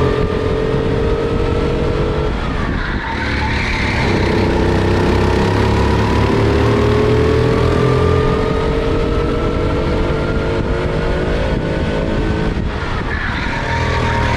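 Four-stroke kart engine heard onboard, its note climbing steadily as it accelerates, then falling off sharply twice (about two and a half seconds in and near the end) as the driver lifts for corners. Each lift brings a short hiss of tyres scrubbing through the turn.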